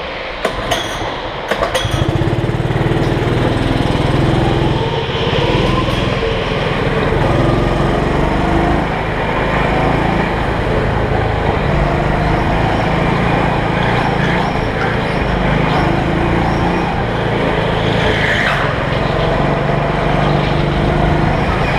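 Rental go-kart's engine, heard up close from onboard, pulling away from standstill and then running hard on track, its pitch rising and falling as the throttle is opened and lifted. A few sharp knocks come in the first two seconds, before the engine gets louder.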